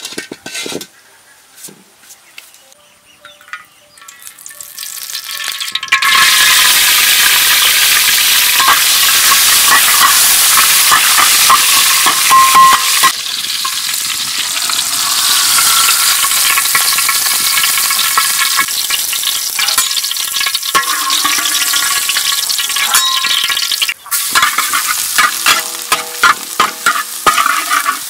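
Chopped garlic sizzling in hot oil in a steel wok, stirred with a metal spatula. After a few quiet seconds with light clinks, the sizzle swells up about five seconds in and stays loud; near the end the spatula scrapes the wok in quick, separate strokes with a slight metallic ring.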